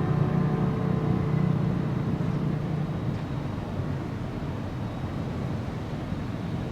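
A steady low rumble of background noise. A low hum in it fades away over the first three seconds.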